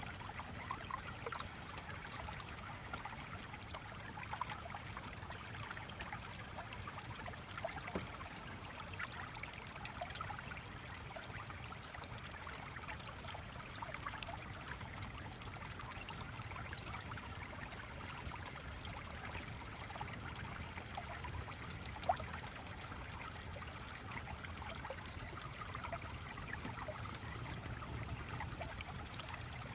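Stream water trickling and burbling steadily over a low rumble, with an occasional sharp click, one louder about two-thirds of the way through.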